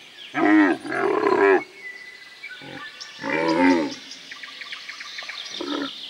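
Camels calling in deep calls that rise and fall in pitch: a long two-part call in the first second and a half, a loud one about three seconds in, and short calls in between and near the end.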